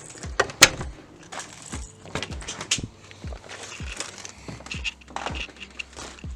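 Electronic background music with a steady beat of deep bass hits that drop in pitch, with sharp percussive clicks.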